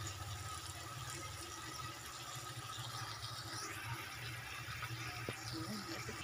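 Sardines in tomato sauce with chopped pechay simmering in a pan, a steady soft hiss of the cooking liquid over a low steady hum.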